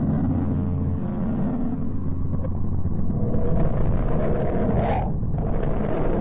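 Space-sound sonification presented as the sound of the planet Mercury: a low, steady rumbling drone with a hum beneath it, breaking off briefly about five seconds in.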